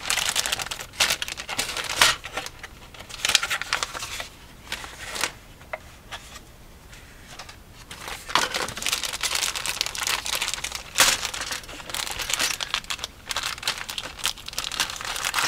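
Clear plastic bag around plastic model kit sprues crinkling as it is handled, in irregular bursts with a quieter stretch in the middle, then crinkling steadily as scissors cut the bag open near the end.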